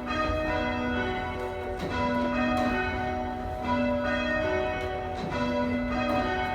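Church bells rung in changes: a ring of bells struck one after another in quick succession, row after row. Each bell's ringing tone overlaps the next.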